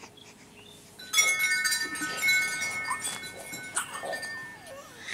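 Small metal bells or chimes ringing, set going suddenly about a second in and struck again several times, each strike renewing a cluster of clear, sustained high tones.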